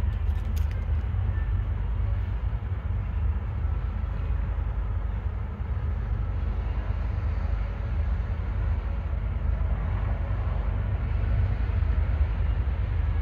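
Low, steady rumble of a pair of distant GE diesel-electric freight locomotives (an ET44AH and an ES40DC) drifting slowly toward the station.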